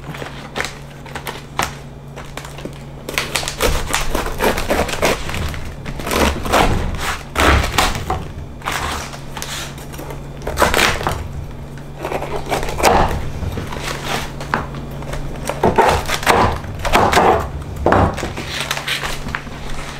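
Knife cutting through a firm, fibrous vegetable on a cutting board: irregular crunching cuts and thunks of the blade hitting the board, over a steady low hum.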